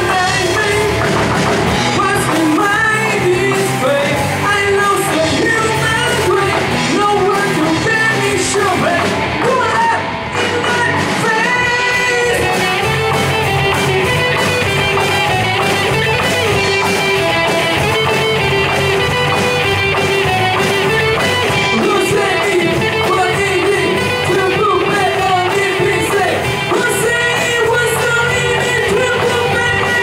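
Live rock band playing a song: a singer over electric guitars, bass guitar, drum kit and keyboard.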